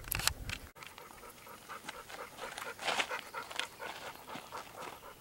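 Pit bull puppy panting softly in quick, uneven breaths.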